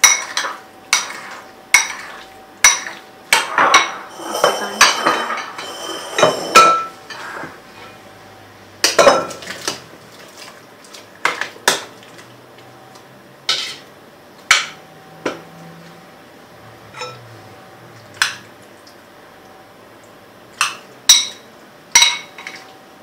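A kitchen knife clicking sharply against a glass bowl, about two strikes a second, as jelly is cut into cubes, with a busier stretch of scraping about four to six seconds in. After that come scattered single clinks and knocks of a spatula and knife against glass and steel bowls.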